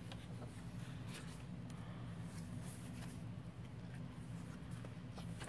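Faint paper handling, soft rustles and light taps as the pages of a handmade junk journal are turned, over a steady low room hum.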